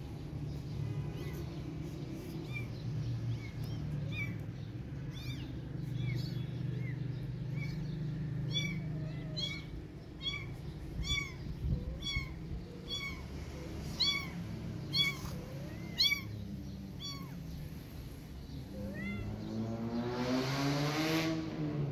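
Kittens meowing over and over in short, high-pitched cries, sparse at first and then about two a second in the middle stretch, over a steady low hum. Near the end a longer, louder sound swells and its pitch rises and then falls.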